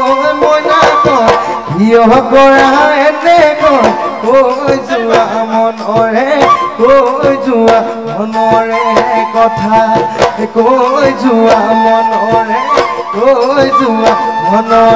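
Assamese folk dance music for Bihu: drums beating a quick, busy rhythm under a wavering melody line and a steady drone.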